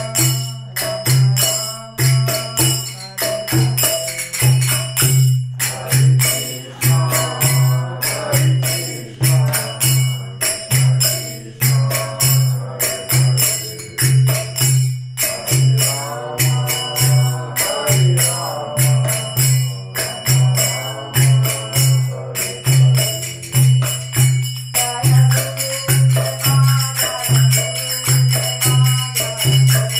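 Devotional kirtan music: a drum keeps a steady beat under jingling hand percussion, with voices singing a chant that comes and goes.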